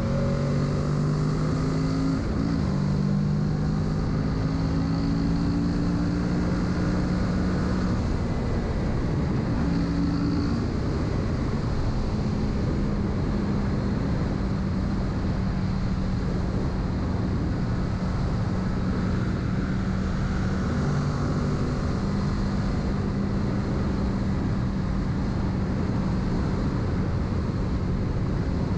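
Kawasaki Z650's parallel-twin engine running under way, with wind rushing past. The engine note shifts briefly a couple of times in the first ten seconds, then holds steady.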